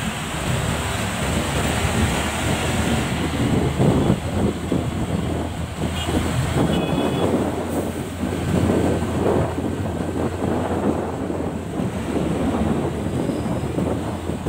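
Wind buffeting the microphone over the engine and road noise of a motorcycle riding in traffic, with a brief high beep about six to seven seconds in.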